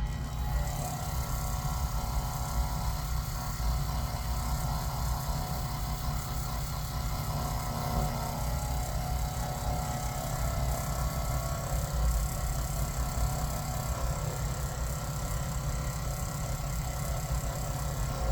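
Typhoon shear-sharpening machine running with its water-cooled hone spinning while a shear blade is ground freehand on it: a steady motor hum with a grinding hiss that comes in about half a second in.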